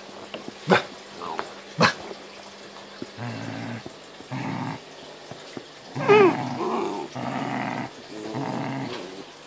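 Great Dane puppies growling in play: a run of short, low growls with a brief wavering yelp about six seconds in. Two short, sharp sounds come near the start.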